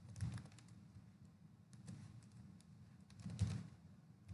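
Faint, irregular keystrokes on a computer keyboard, coming in short runs of clicks, a little louder near the end.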